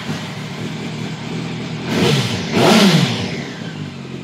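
Motorcycle engines running. They swell loudly about two seconds in and again near three seconds, the pitch rising and then falling.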